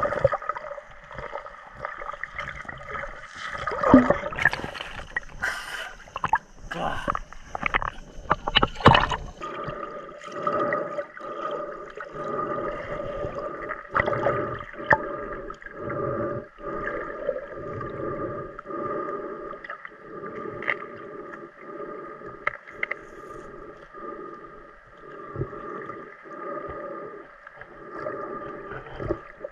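Muffled underwater audio of water moving around the camera, with loud knocks about four and nine seconds in and softer pulses about once a second after that. A steady hum sits under it throughout.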